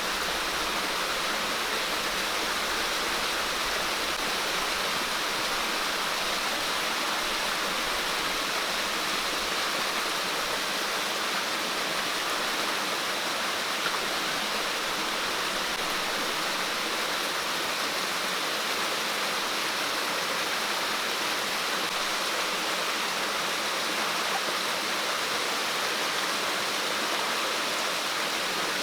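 Steady rushing water, an even, unbroken hiss with no separate events.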